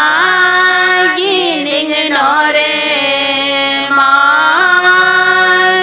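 Female voices singing a slow melody in long held notes, sliding down and up between notes about two seconds in and rising into a new held note near the end.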